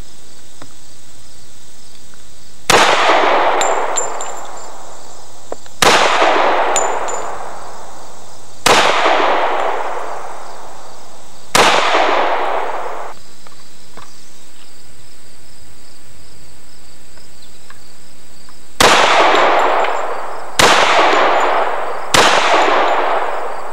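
Seven shots from the Rudd .45-caliber delayed-bolt automatic pistol, each followed by a long fading echo. The first four come about three seconds apart, then after a pause three more come quicker, about two seconds apart.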